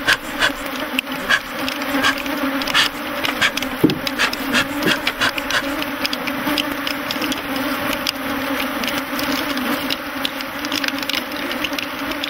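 A large swarm of honeybees buzzing in a loud, steady drone, agitated by their hives being opened and the honey supers removed. Frequent sharp clicks and knocks sound over the buzzing.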